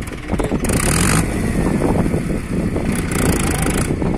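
Mahindra Arjun 555 DI tractor's four-cylinder diesel engine running steadily under load as it pulls a seed drill. Two short bursts of hiss come over it, about a second in and near the end.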